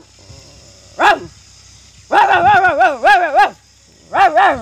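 A person imitating a dog: a short yelp about a second in, then a run of wavering, whining howls, and one more near the end.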